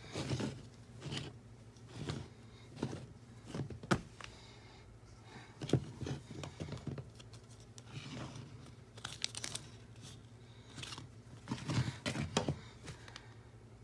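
Irregular rustling and crinkling handling noise, with a few sharp clicks, as a plush animated toucan toy is grabbed and moved about by hand.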